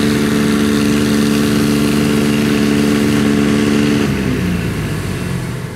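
Rice combine harvester diesel engine held at high revs under heavy load while towing a second harvester bogged down in the mud by chain. About four seconds in, the steady engine note breaks off, the revs drop and the sound fades.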